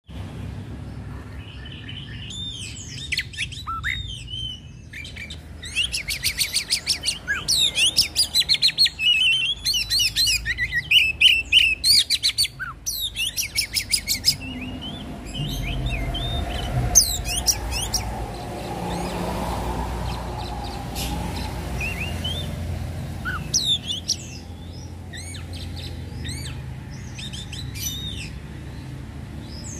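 Caged oriental magpie-robin singing a loud, varied song of whistled phrases and sweeping notes, with bursts of fast rattling trills in the first half. A low rumble comes and goes in the background midway.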